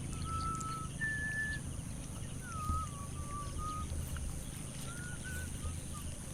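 A bird singing a series of short, clear whistled notes, some held and one sliding downward, over a steady low rumble.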